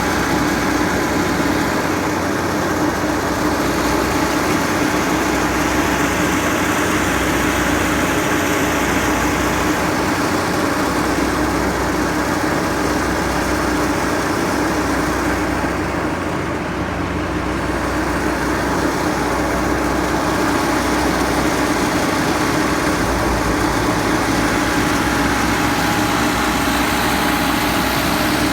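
Leeboy 8500C asphalt paver's diesel engine running steadily, heard from the operator's position, with a slight brief drop in level a little past halfway.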